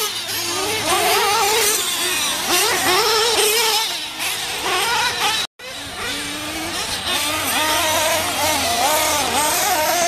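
Small two-stroke glow-fuel (nitro) engines of RC truggies racing, revving up and down so their pitch keeps rising and falling. The sound drops out for a moment about halfway through.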